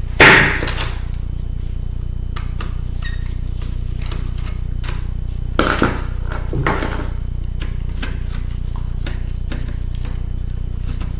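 Metal clicks, taps and clacks of pliers and small tools working on a 2006 MacBook's aluminium parts and screws during disassembly. The loudest is a sharp clack right at the start, with two more around the middle, over a steady low hum.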